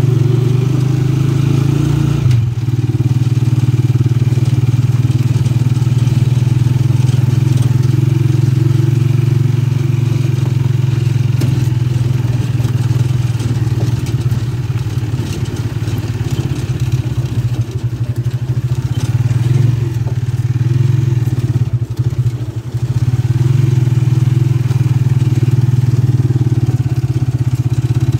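Small motor vehicle engine running steadily as it drives along, with a brief dip in level about three quarters of the way through.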